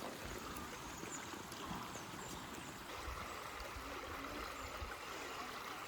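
River water running steadily, an even background rush.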